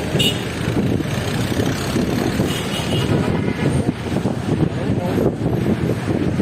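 Road traffic running past, with wind rumbling on the microphone.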